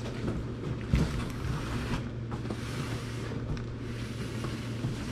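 Rustling and handling of packaging while the box of food pouches is unpacked, with a louder thump about a second in, over a steady low background hum.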